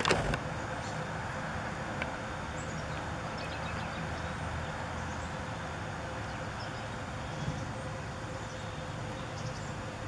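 Steady outdoor background hum of distant road traffic, with faint scattered chirps of small birds and a brief knock right at the start.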